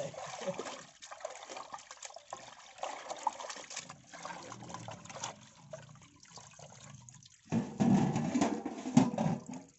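Water splashing and dripping in a large steel pot as raw chicken pieces are washed by hand, water streaming off pieces lifted out and squeezed. The splashing is loudest near the end.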